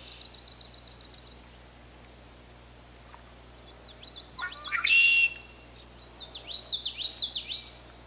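Male red-winged blackbird singing: one loud song a little past halfway, ending in a held note, followed by a run of quick high notes. A faint fast trill from another bird comes first.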